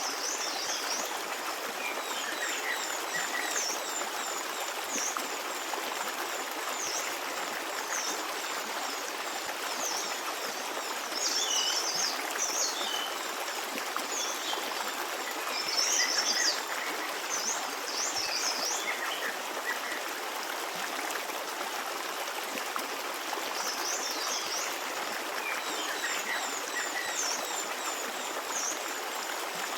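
A stream running steadily, with small birds chirping in short, high, quick notes throughout, busiest about a third of the way in and again just past halfway.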